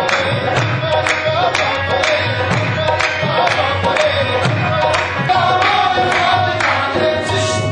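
Qawwali party singing together to harmonium accompaniment, with sharp hand claps on the beat about twice a second.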